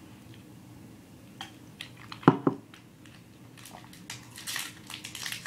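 A few sharp clicks, the two loudest close together about midway, then steady crinkling of a Hi-Chew candy wrapper as a strawberry piece is unwrapped.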